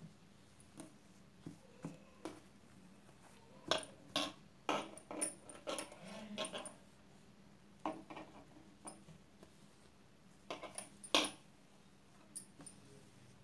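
Fabric being folded and smoothed by hand on a wooden table: scattered soft rustles and light knocks, coming in short runs.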